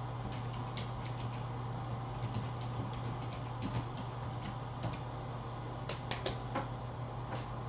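Computer keyboard keystrokes as a name is typed: short, sharp clicks at irregular spacing, a quick cluster about six seconds in, over a steady low hum.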